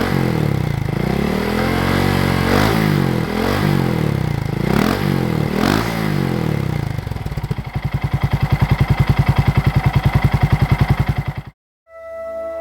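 Honda Monkey 125's single-cylinder four-stroke engine revved in repeated blips, each rising and falling back, then settling into a steady, even idle that cuts off suddenly near the end. Soft music comes in just after.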